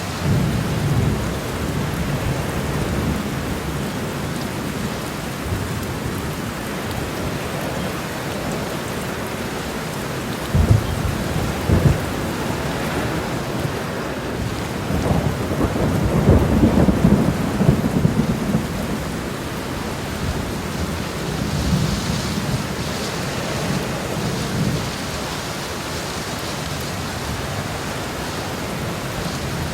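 Heavy rain pouring onto a road, a steady hiss with a few louder, deeper swells, the biggest about halfway through.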